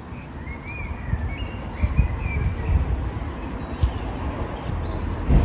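A small bird chirping a string of short, quick notes in the first couple of seconds, over a steady low rumble with a few dull thumps, the loudest near the end.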